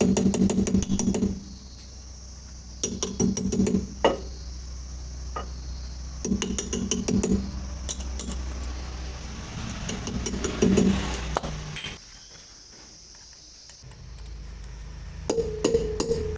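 Metal tools and parts clinking and rattling in several short bursts of sharp knocks, over a steady background hum.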